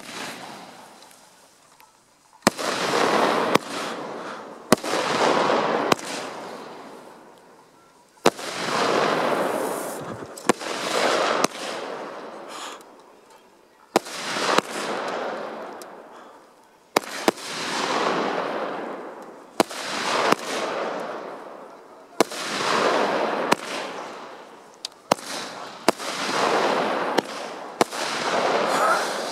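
Multi-shot fireworks battery (cake) firing in the open: about a dozen loud shots, two to three seconds apart, each a sharp crack followed by a long fading hiss as the burst dies away.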